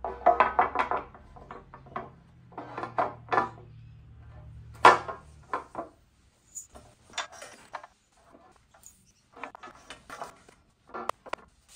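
Parts and packaging of a Snapmaker Artisan being handled and set down: a string of irregular knocks, clacks and rubbing, loudest about five seconds in, with a low hum under the first half.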